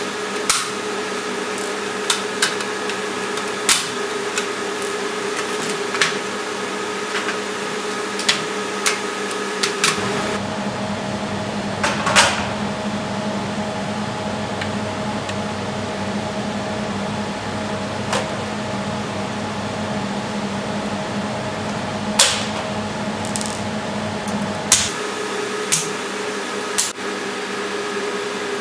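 Chocolate-moulding machinery running with a steady hum and sharp clicks and knocks at irregular intervals. The hum changes tone about ten seconds in and changes back near the end.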